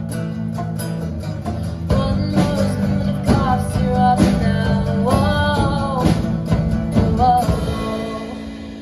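A woman singing with guitar accompaniment. The voice comes in about two seconds in with long held notes over strummed chords, and the music fades away near the end as the song closes.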